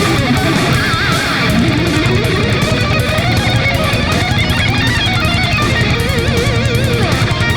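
Guitar-led music, with an electric guitar playing held lead notes that waver with vibrato over a steady low end.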